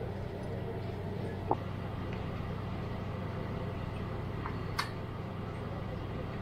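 Steady room hum of a small restaurant, with two short light clicks about a second and a half in and near five seconds in.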